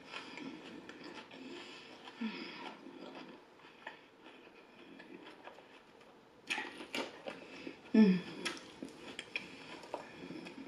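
Close-up eating sounds: salad being chewed, with a plastic fork clicking and scraping against a foam takeout container, sharpest a little past halfway. Twice the eater gives a short low hum.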